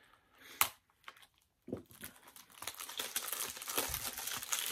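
A sharp tap about half a second in, then from about two seconds in a continuous crinkling and crumpling of plastic wrapping being handled and pulled off a Blu-ray case.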